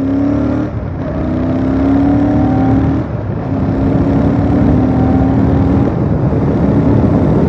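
Royal Enfield Super Meteor 650's parallel-twin engine accelerating hard through the gears, its pitch climbing slowly and dipping briefly three times as it shifts up.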